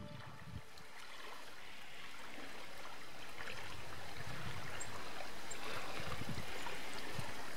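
Running water in a stream, fading in and growing steadily louder, with low rumbles of wind underneath.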